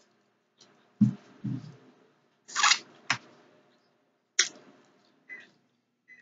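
Eating sounds: a few scattered mouth clicks, soft thuds and one short crunchy rustle, separated by pauses.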